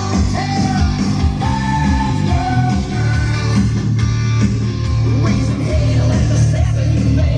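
Rock song with a singer and guitar playing.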